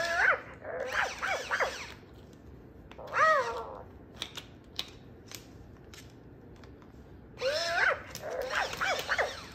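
Electronic plush puppy toy making whimpering, yipping puppy sounds in several short bursts with pauses between them, with a few light taps as a bird pecks at it.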